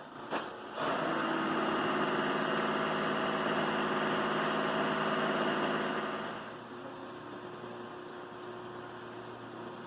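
Climax BB5000 portable line boring machine running steadily, its boring bar turning a carbide bit through the steel of the bucket ear with a steady hum and whine. The sound drops noticeably quieter about six and a half seconds in, leaving a lower steady hum.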